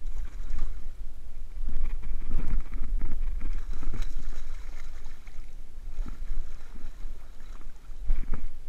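Wind buffeting the camera microphone in a steady low rumble, with irregular splashes and knocks as a hooked fish thrashes at the surface and is scooped into a landing net beside a kayak.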